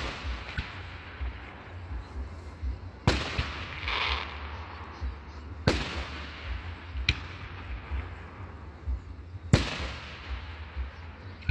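Aerial firework shells bursting: three sharp bangs about 3, 6 and 10 seconds in, and a fainter one near 7 seconds, each trailing off in a short echo, over a steady low rumble.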